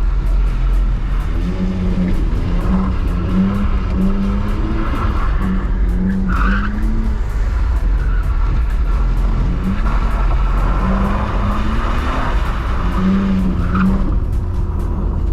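BMW E46 320i's M54B22 2.2-litre inline-six revving up and down again and again under throttle, with the tyres skidding on a wet surface as the car slides through a drift.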